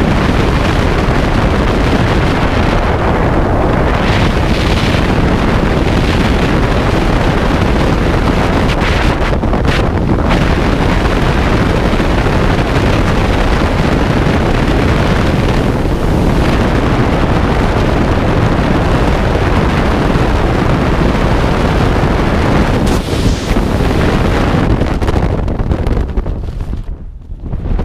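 Freefall wind rushing over a skydiver's helmet camera microphone: a loud, steady rush that dips briefly near the end.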